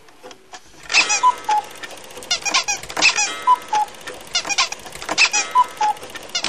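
Cartoon sound effect: a fast clatter of clicks, each followed by two short squeaky tones, repeated three times about two seconds apart.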